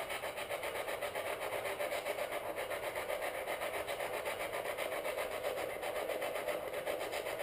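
Steady static-like hiss with a fast, even flutter running through it, and no clear words.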